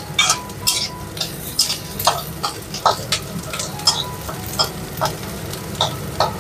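Flat metal spatula scraping and clinking against a metal kadai as chopped onion and capsicum are stir-fried, in irregular strokes a couple of times a second over a low, steady sizzle of frying.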